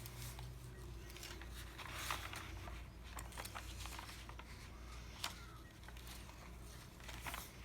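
Pages and tags of a handmade paper junk journal being turned and handled: soft, scattered paper rustles and light taps over a low steady hum.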